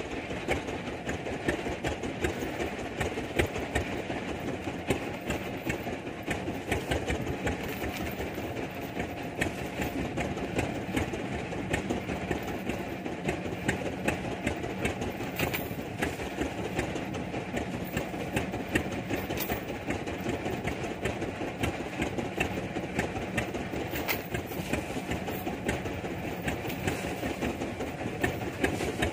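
A small fishing boat's engine running steadily under way, a fast, even chugging.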